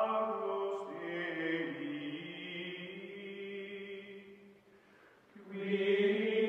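Outro music of long held, chanted, choir-like tones in several pitches, which shift about a second in, fade away for a moment near the end, then come back strongly.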